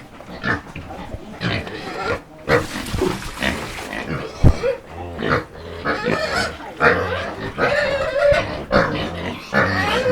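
Pigs in a pen calling over and over with short grunts and squeals, with a sharp knock about four and a half seconds in.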